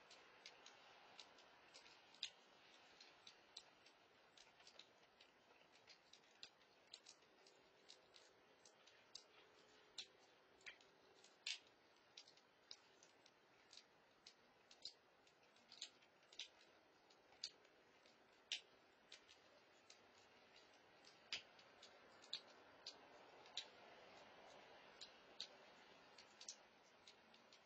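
Faint, irregular sharp clicks, about one to three a second, from cats eating at a food bowl, over a low hiss.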